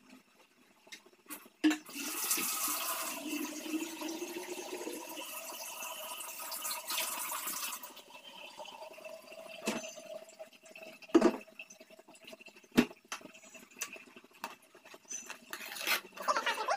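Water running for about six seconds, starting a couple of seconds in, then three sharp knocks; near the end a ladle stirring kadhi in a metal pot, scraping and clinking.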